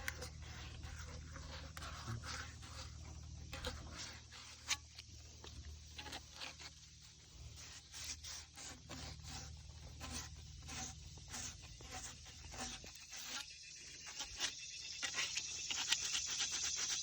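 Cut end of a PVC drain pipe being deburred: short, repeated scraping strokes, about two a second. A steady high hiss builds up near the end.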